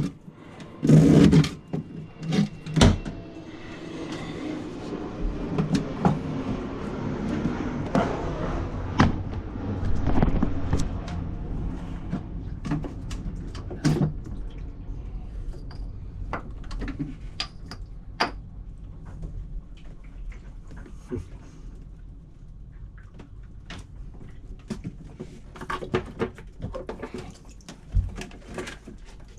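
Knocks, clunks and scraping of hands pulling out and handling old shower-sump hoses and fittings in a small cabin. Two loud knocks come in the first three seconds, then a stretch of rubbing and scraping, then scattered lighter clicks and knocks.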